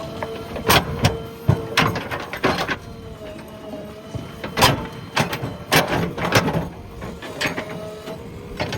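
JCB backhoe loader at work: a steady whine under a dozen or so sharp, irregular knocks and clanks.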